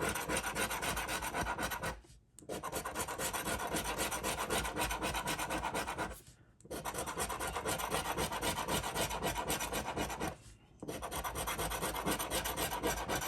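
Scratch-off lottery ticket being scratched: a rapid rasping scrape across the coating, in long runs broken by three short pauses about four seconds apart.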